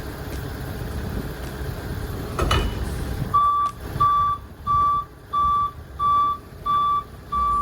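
Forklift engine running, a clunk about two and a half seconds in, then its reversing alarm starts a little after three seconds: a steady single-pitched beep repeating about one and a half times a second.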